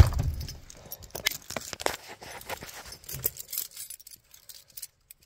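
Scattered light clicks and scrapes of keys being handled in a pickup's cab, after a single thump at the very start; no engine is running.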